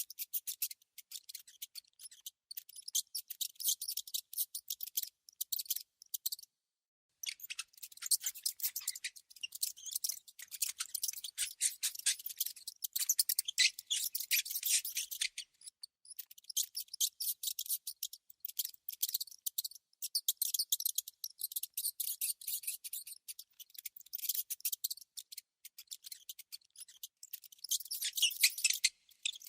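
A small rodent making rapid, high-pitched scratching and clicking sounds in dense runs, with a brief pause about six seconds in.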